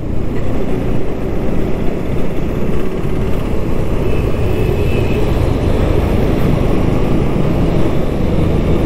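Steady riding noise from a Bajaj Pulsar NS200 motorcycle under way in traffic: wind rushing over the helmet microphone, with the engine running underneath.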